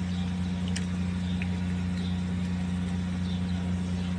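A steady low mechanical hum, even in level throughout, with a few faint clicks over it.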